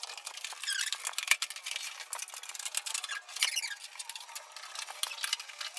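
Cardboard packaging being pulled open and handled: a busy run of scrapes, rustles and small clicks, with two brief squeaks about a second and three and a half seconds in.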